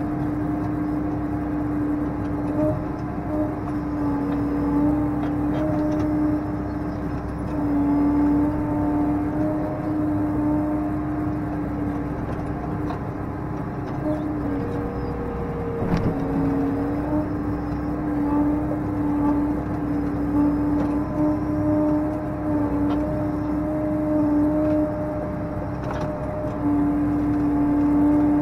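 Case IH tractor with a front loader running steadily, heard from inside the cab: a constant engine hum whose pitch shifts a little as the loader moves round bales. A single short knock comes a little past the halfway point.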